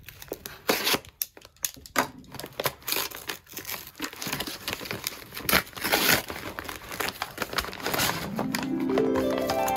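Brown kraft-paper package wrapping crinkling and tearing as it is slit with a utility knife and ripped open by hand, in a run of irregular crackles. Near the end a rising musical tone comes in.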